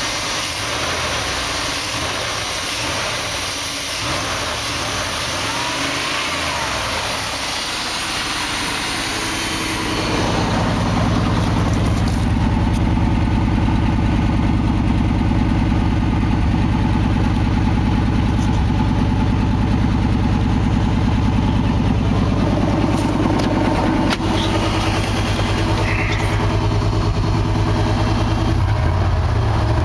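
1989 Chevrolet 1500 pickup's 350 V8 running at a steady idle. For the first ten seconds it is heard from inside the engine bay as a hissy, even sound. From about ten seconds in it turns into a louder, deeper, steady exhaust note.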